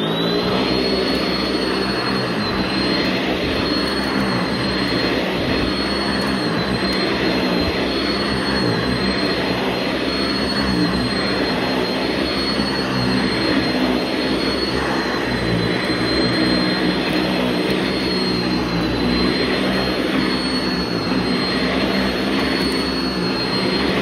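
Sanitaire SC679 commercial upright vacuum with its 5-amp motor starting up, its whine rising briefly in pitch, then running steadily with a high whine as its Vibra-Groomer II brush roll works over a shag carpet.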